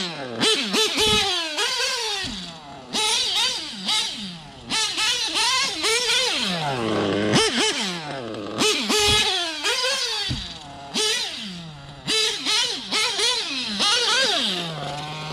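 Novarossi .25 nitro engine in a TLR 8X-T 1/8-scale truggy, revving up and down over and over as the truck is driven, its pitch climbing and dropping with each burst of throttle. The engine is being broken in and is livening up.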